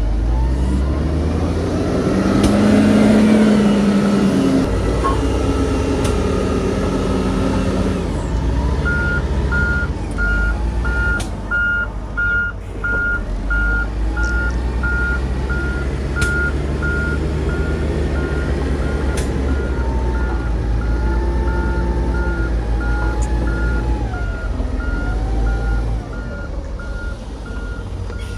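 Heavy diesel earth-moving machinery running with a deep, steady engine sound that works harder about two to four seconds in. From about nine seconds in a reversing alarm beeps at an even pace.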